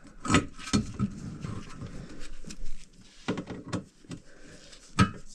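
A handful of short, sharp knocks and clatters of hard objects being handled, spaced irregularly, with the loudest near the end.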